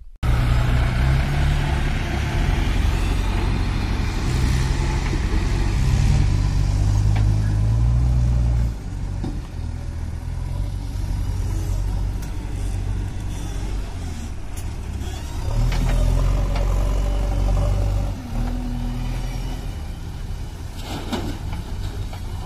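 Diesel engines of a JCB 3DX backhoe loader and tractors running at work, their note rising and falling with load, and a few sharp knocks in the second half.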